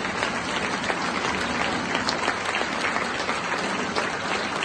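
A large audience applauding steadily: a dense, even patter of many hands clapping.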